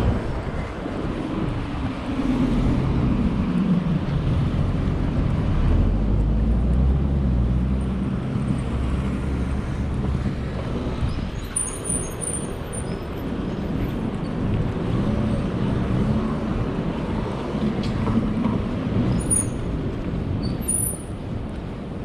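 City street traffic: vehicles passing with a low engine rumble, one engine's pitch falling as it goes by in the first few seconds. A few short high chirps sound about halfway through and again near the end.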